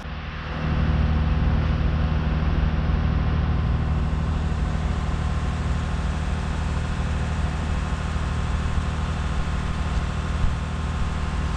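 An engine running steadily, a deep hum with an unchanging pitch that swells up in the first second and then holds.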